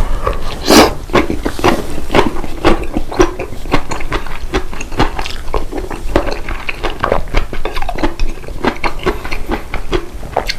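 Close-up sounds of a person eating: a quick run of wet chewing clicks and smacks, several a second, with a louder noise about a second in.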